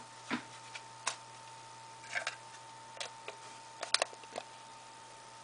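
Light plastic clicks and taps as a white iPhone and the red hard-plastic parts of its case are handled, with a quick cluster of sharper clicks about four seconds in. A faint steady high whine runs underneath.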